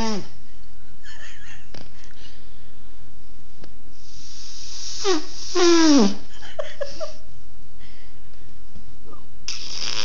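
Mouth-made fake fart noises: short, high squeaky squeals that drop steeply in pitch, one right at the start and a louder one about five to six seconds in, with breathy hissing blown around them.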